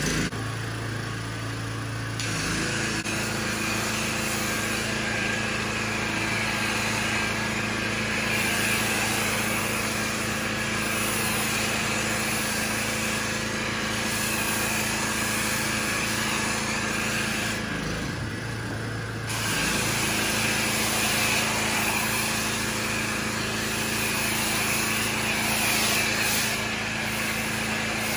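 Pressure washer starting up and running with a foam cannon on the gun: a steady motor-and-pump hum under the hiss of the spray as snow foam is sprayed onto the car. The spray cuts out for about a second and a half about two-thirds of the way through, then resumes.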